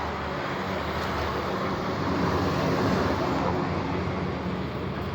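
Road traffic noise: a vehicle passing, swelling to its loudest two to three seconds in and then easing off.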